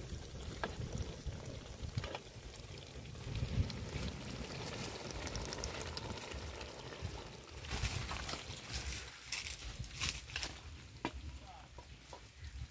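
Mutton frying in a pot with its masala, a steady sizzle with a few sharp clicks scattered through it.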